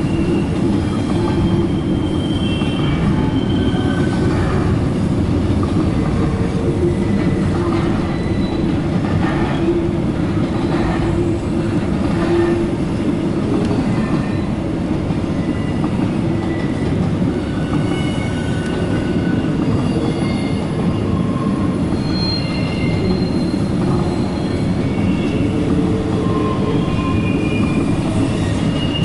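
Double-stack container cars of a CSX intermodal freight train rolling past: a steady rumble of steel wheels on rail, with short high-pitched wheel squeals here and there.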